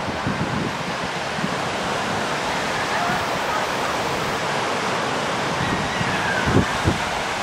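Steady wind blowing across the microphone over the wash of Lake Michigan surf breaking on the beach, with two stronger gusts buffeting the microphone near the end.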